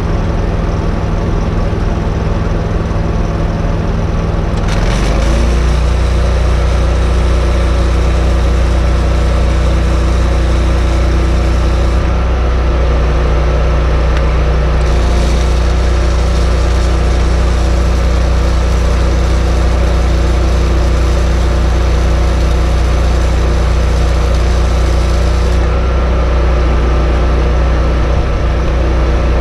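Engine-driven welding machine on a welding truck running, stepping up from idle to a louder welding speed about five seconds in. The hiss and crackle of an arc weld sits on top of it until near the end, when the arc stops and the engine keeps running.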